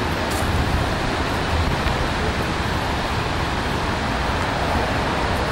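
Steady outdoor noise: an uneven low rumble of wind on the microphone over an even background hiss.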